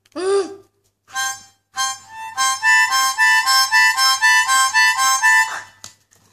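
A harmonica played in a quick run of chords that switch back and forth between two chords several times a second, starting about two seconds in and cutting off abruptly near the end.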